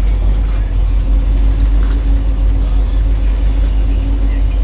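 Boat engine running steadily while trolling, a loud low drone with a constant hum.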